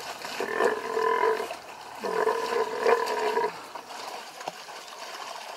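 Two drawn-out animal calls, each held on a steady pitch: a shorter one in the first second and a longer one starting about two seconds in.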